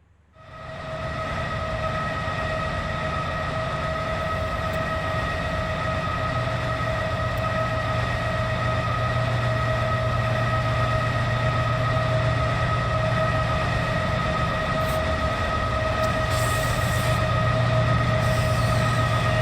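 BNSF train running past: a steady low rumble with a constant high whining tone over it, starting abruptly about half a second in. A few short hissing sounds come near the end.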